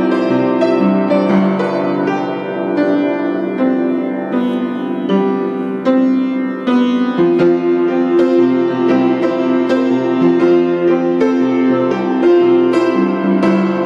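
Instrumental piano music, with notes and chords struck one after another.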